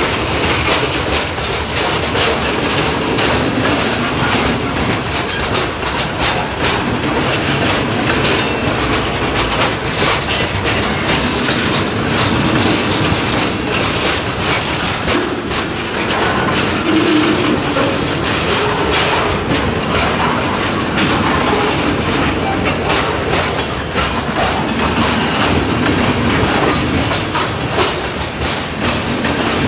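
Freight train of covered hopper cars rolling past close by: a loud, steady rumble of steel wheels on rail with rapid clicking as the wheels cross the rail joints.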